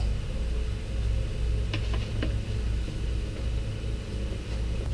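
Steady low rumble, with a few faint light clicks a little under two seconds in from small metal parts being handled.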